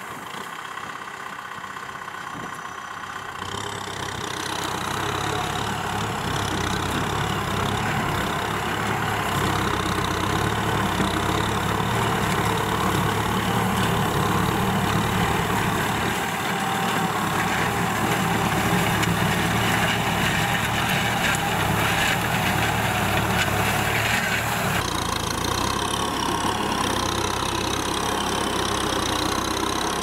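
Kubota M6040SU tractor's four-cylinder diesel engine running steadily under load while pulling a disc plough, growing louder about four seconds in.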